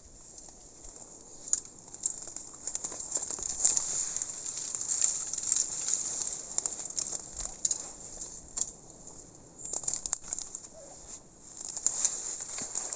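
Footsteps crunching through dry bamboo leaf litter and twigs, with stalks brushing past: an irregular crackle of snaps and rustles, easing off briefly about two-thirds of the way through.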